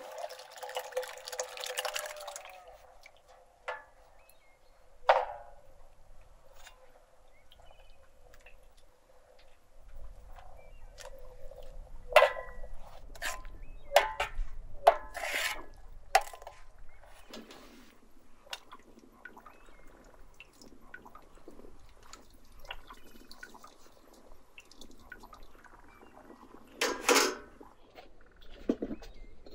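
A thick liquid mixture poured from a steel tray into a metal bowl, splashing for about two seconds, then scattered clinks and scrapes of a steel ladle against the metal bowl as the mixture is stirred.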